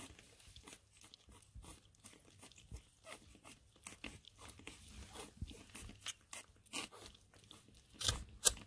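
French bulldog puppy suckling milk from a feeding bottle: a run of soft, irregular wet smacking and sucking clicks, with a few louder ones near the end.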